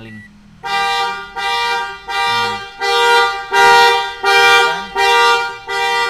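Mitsubishi Xpander's anti-theft alarm sounding the car horn in a steady run of loud, evenly spaced blasts, about eight in six seconds, starting just under a second in. It is triggered by opening a locked door from inside with the alarm armed.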